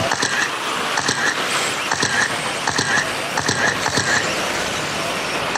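Electric 13.5-turn brushless RC race trucks running laps on a dirt oval: a steady whir of motors and tires with scattered clicks. Short high beeps recur irregularly, every half second to a second.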